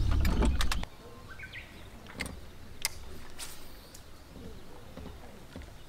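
A low rumble cuts off abruptly just under a second in. Faint small bird chirps then sound over quiet outdoor background.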